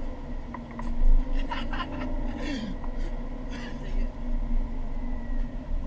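Teenagers laughing inside a pickup truck's cab over the steady hum of the idling engine, with a single thump about a second in.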